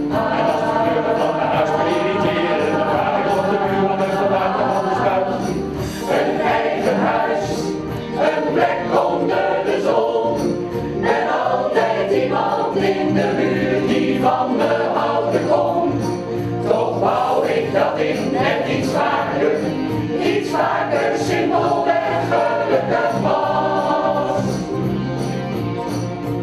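Mixed choir of men and women singing together, with no breaks.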